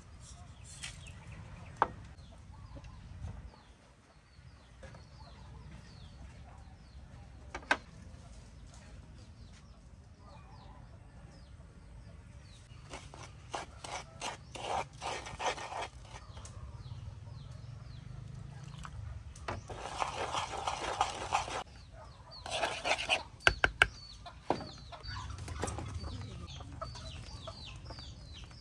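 Chickens clucking, with many short bird chirps throughout. Scattered clicks and clatter, denser about halfway through, and a loud burst of noise lasting about two seconds about two-thirds of the way in, the loudest part.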